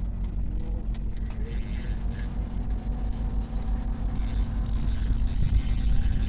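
Car on the move: steady engine and road rumble with a low hum.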